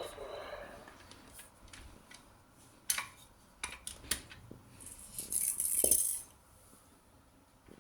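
Marbles clicking and clattering against each other and against marble-run track pieces. A few sharp clicks come about three to four seconds in, then a rattling run of about a second and a half near the six-second mark.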